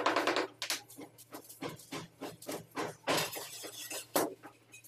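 A wooden stick tapping a ceramic floor tile, about three taps a second, to bed it into the mortar. Just after three seconds a tile scrapes briefly, and just after four seconds there is one loud sharp knock.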